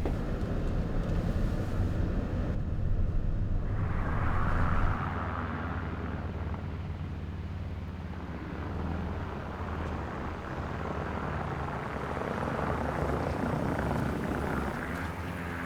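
A van driving, with a steady engine and road hum; the deepest rumble drops away about five seconds in.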